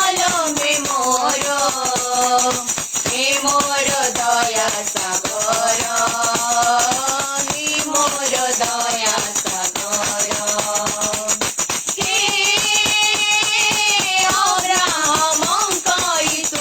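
A worship song: a voice sings a melody in long held notes over a fast rattling percussion rhythm.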